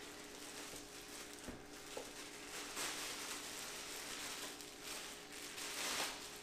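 Clear plastic bag rustling and crinkling in irregular swells as it is worked off a Ninja Foodi Grill's grill plate, with a light knock about one and a half seconds in.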